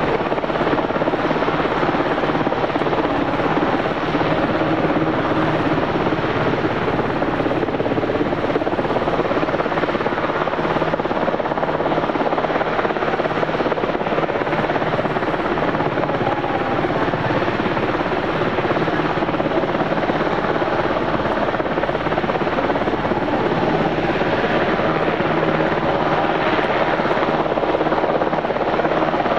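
A UH-60J search-and-rescue helicopter's rotors and twin turboshaft engines running at a steady, even level.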